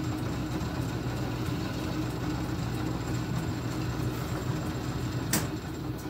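Small bench metal lathe running steadily with a low electric motor hum, its three-jaw chuck spinning. A sharp click comes about five seconds in.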